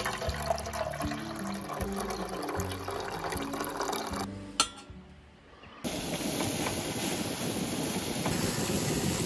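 Hot water poured from a kettle into a stainless steel camping mug, over background music. After a short lull with a single click, a steady hiss from the gas camp stove and griddle starts about six seconds in.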